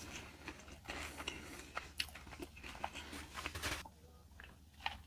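Close-miked chewing: a person chewing food with many small wet mouth clicks, easing off about four seconds in to a few soft clicks.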